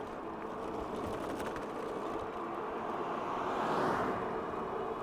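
A car passes close by: its tyre and road noise swells to a peak about four seconds in and then fades. Under it runs the steady whine of the e-bike's hub motor, with wind rumbling on the microphone.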